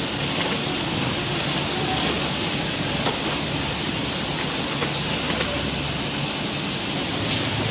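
Steady mechanical din of workshop machinery, with a few faint light clicks from charger shells being handled and the automatic taping machine cycling.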